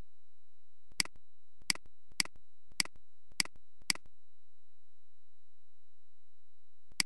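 Computer mouse clicking: six sharp clicks over about three seconds, then one more near the end, over a steady low hum.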